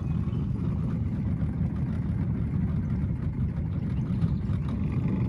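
Small fishing boat's outboard motor running steadily at low trolling speed, an even low rumble.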